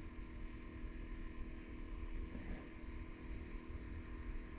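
A faint, steady low hum with an uneven low rumble underneath.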